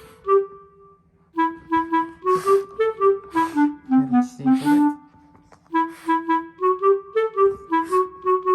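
Background music: a light, bouncy woodwind melody, clarinet-like, played in short, separate notes, with a few brief hissing accents.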